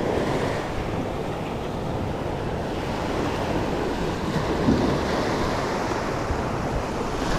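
Small surf waves breaking and washing up a sandy beach, a steady wash of water, with wind buffeting the microphone.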